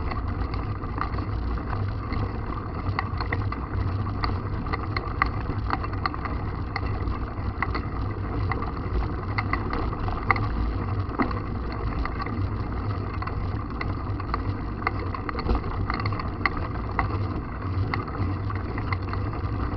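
Wind buffeting the microphone of a camera carried on a mountain bike, with many small clicks and rattles throughout from the bike on rough ground.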